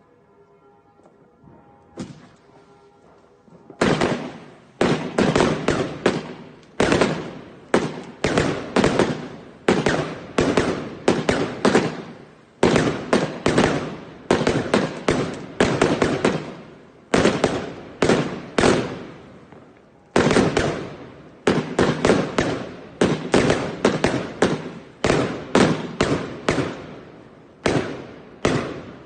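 Fireworks going off: a single bang about two seconds in, then a long rapid run of loud bangs, roughly two a second with a few short breaks, each dying away briefly.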